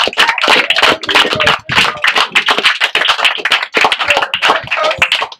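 A small group of people clapping their hands: a quick, irregular patter of claps.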